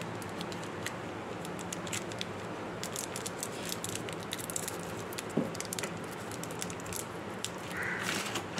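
Plastic candy wrapper crinkling and crackling as fingers twist open a Pulse hard candy, with one sharper knock a little past halfway.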